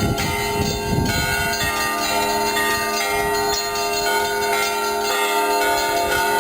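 Russian Orthodox monastery bells ringing. Several bells of different pitches are struck and ring on over one another, with heavier low strokes near the start.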